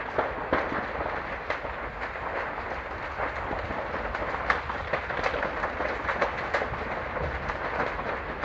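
Large building fire burning: a steady rushing noise dotted with frequent crackles and a few sharper pops, the loudest about halfway through.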